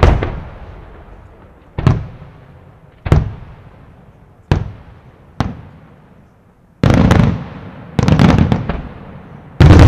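Aerial firework shells bursting: five single sharp bangs about a second apart, each echoing away, then from about seven seconds in, three longer bursts of many reports in quick succession.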